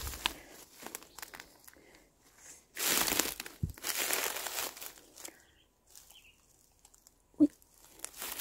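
Footsteps on dry grass and leaf litter: a few rustling steps, then a quiet pause, then a single sharp thump near the end, the loudest sound.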